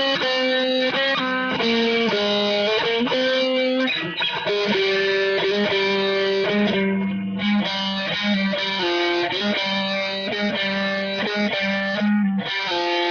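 Electric guitar playing a melody of held notes that change every half second or so over a steady low note.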